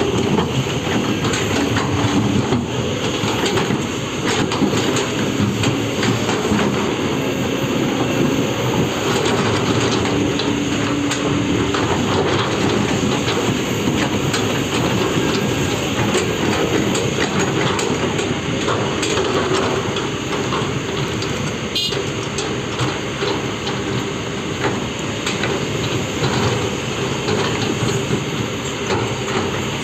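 Heavy excavator working, its engine running under a continuous metallic clanking and clatter, with one sharper knock about two-thirds of the way through.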